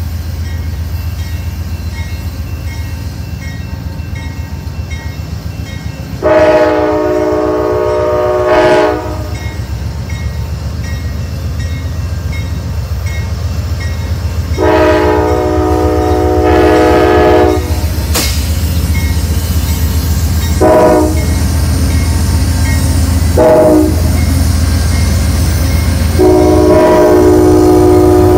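Amtrak GE P42DC diesel locomotive approaching a grade crossing, its horn blowing two long blasts, two short blasts and then a long blast near the end, over the steady low rumble of the locomotive's diesel engine. The horn pattern is the warning sounded for a grade crossing.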